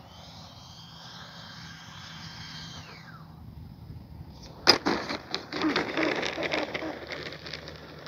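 Electric ducted fan whine of an E-flite 80mm F-16 Thunderbirds RC jet, falling in pitch as the throttle comes back, then a sharp knock as the jet touches down and a rough rolling noise of its wheels on the asphalt runway for about three seconds.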